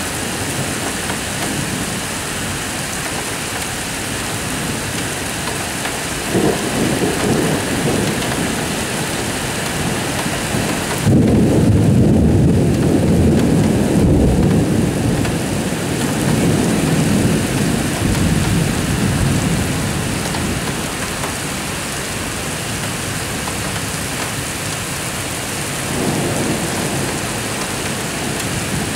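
Heavy rain falling steadily, with rolling thunder. There is a rumble about six seconds in, a louder, longer rumble from about eleven seconds that lasts several seconds, and another rumble near the end.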